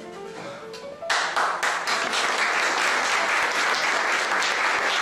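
Soft background music with plucked notes, then about a second in applause breaks out suddenly and keeps going, covering the music.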